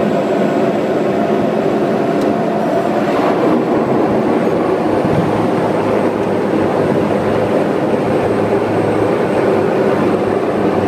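Steady drone of engine and airflow heard inside an airplane's cockpit as it lands on the runway, with a low rumble underneath.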